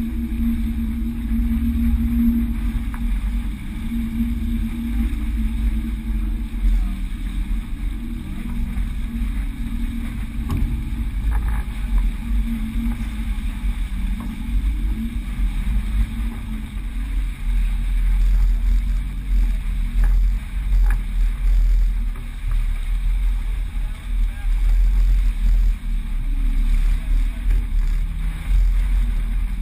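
Wind rumbling on the microphone of a sailboat under way, over the rush of water along the hull and a steady low hum.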